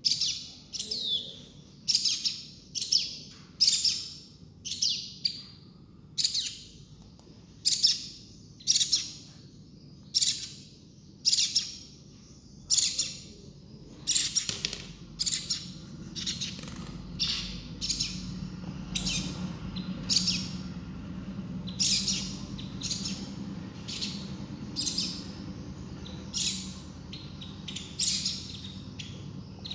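Baby birds chirping: a steady series of short, high, downward-sweeping calls, roughly one a second.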